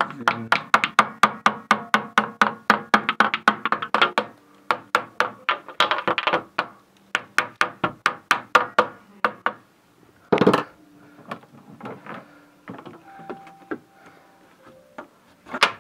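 Plastic glazing beads being knocked back into a PVC window frame: quick runs of sharp taps, about five a second, with pauses between runs and one heavier knock about ten seconds in.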